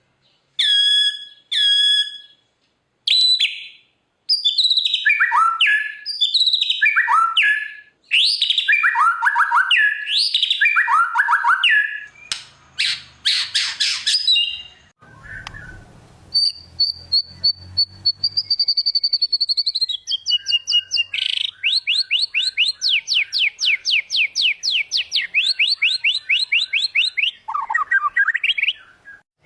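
White-rumped shama (murai batu) singing a long, varied song. Clear whistles and falling slurred phrases give way to a harsh rattle, then a long held whistle, then a fast run of repeated notes. This is the full song, rich in mimicked phrases.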